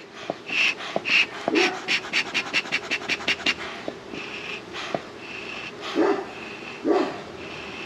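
A dog panting fast, in quick, rhythmic breaths.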